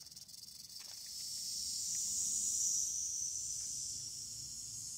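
Prairie rattlesnake rattling its tail: a high, dry buzz that grows louder over the first two seconds or so, then holds steady. This is the snake's warning as it sits coiled.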